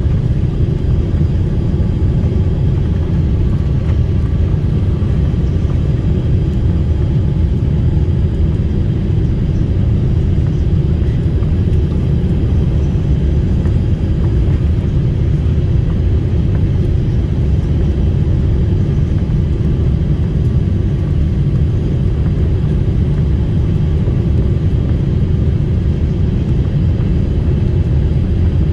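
Airliner cabin noise heard from a passenger seat: a steady low rumble of engines and airflow, with a faint steady whine above it and no change in level.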